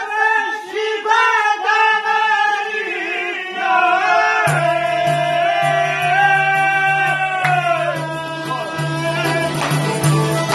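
A man singing an Albanian folk song with long, bending, held notes, accompanied by lutes, violin, accordion and a frame drum. A low pulsing bass comes in about halfway through.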